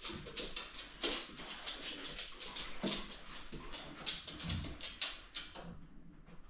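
A dog moving about on a hard floor and sniffing as it searches for treats, with scattered light clicks and short sniffs.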